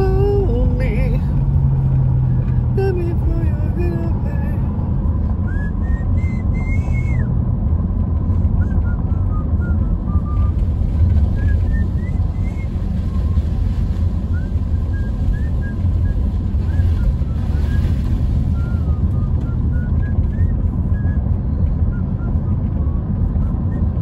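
Car cabin noise while driving: a steady low rumble of the engine and tyres on wet, slushy pavement. Faint short wavering tones sit over it now and then.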